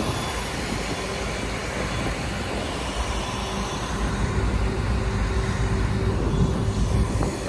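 River ferry's engine running steadily, a low drone under a constant rushing noise.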